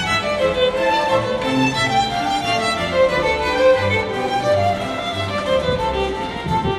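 Background music led by violin over a bass line.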